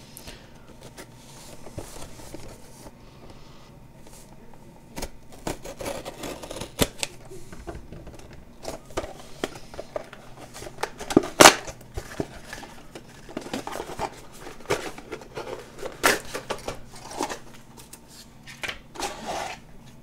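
Intel Core i3 retail cardboard box and its packaging being handled and opened by hand: scattered taps, clicks and rustles, with one sharp loud click about eleven seconds in.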